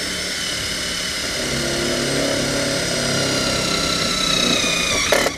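Cordless drill driving a self-tapping screw into a stainless steel sheet. The motor's whine slowly drops in pitch as the load builds, then it stops abruptly with a short knock near the end.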